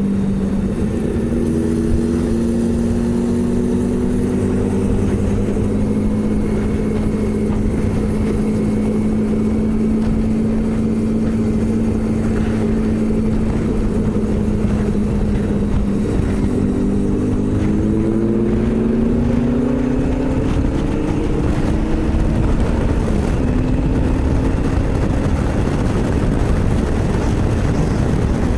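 Motorcycle engine running at a steady cruise under heavy wind and road noise. A little over halfway through, its pitch climbs in a few rising sweeps as it accelerates, then settles again.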